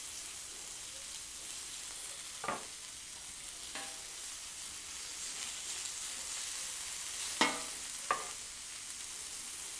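Thin strips of carne asada sizzling on a hot, oiled Cuisinart 360 flat-top griddle, a steady hiss of frying meat. A few short clinks of metal tongs are heard as more strips go on.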